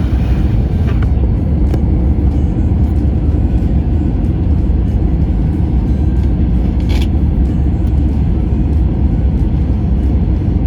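Airliner cabin noise in descent: the steady low rumble of the engines and the air rushing past the fuselage. A brief sharp click sounds about seven seconds in.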